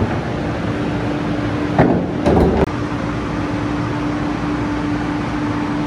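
Steady hum of a stopped Amtrak Acela train at the platform, with one held tone running through it. About two seconds in come two short clunks as the portable boarding ramp is set down at the train door.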